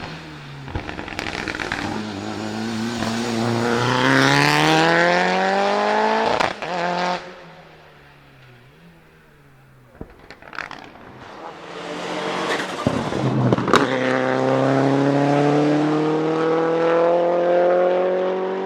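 Mitsubishi Lancer Evo VI Group A's turbocharged 4G63 four-cylinder at full throttle, its pitch climbing steadily. About six and a half seconds in it cuts off suddenly with cracks and pops from the anti-lag misfiring system. After a quieter lull with more pops it climbs again in a long rising pull, with sharp bangs along the way.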